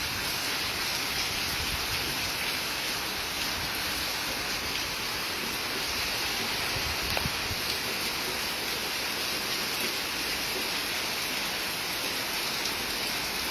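Heavy rain pouring down steadily, a dense, even hiss without a break.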